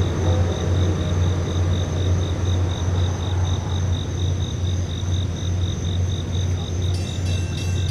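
Crickets chirping in a steady pulse of about three chirps a second over a constant low hum. Near the end a set of clear ringing tones joins in.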